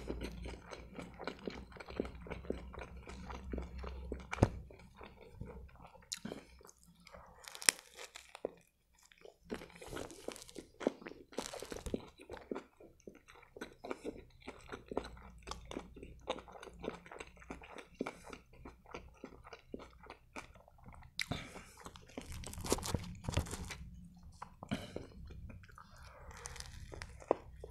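Close-miked chewing of a turkey shawarma in grilled lavash: many small irregular clicks, with a fresh bite into the wrap near the end.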